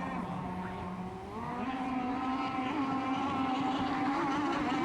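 Radio-controlled racing boat engines running at speed on the water. A pitch rises about a second and a half in, as a boat comes closer or speeds up, then holds steady.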